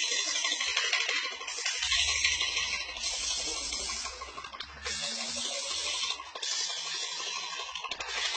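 Paint sprayer hissing, the spray swelling and dropping every second or two, with a low hum underneath for a few seconds starting about two seconds in.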